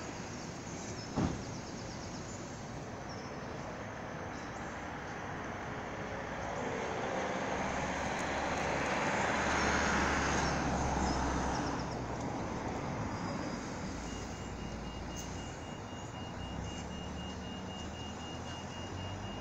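Outdoor traffic noise, swelling as a vehicle passes in the middle and then settling back. A faint steady high-pitched tone comes in over the last few seconds.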